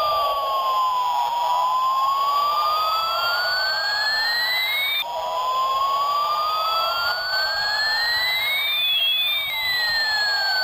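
Electronic siren-like wail: several tones glide slowly down and up in pitch, each sweep lasting a few seconds, with an abrupt jump about five seconds in.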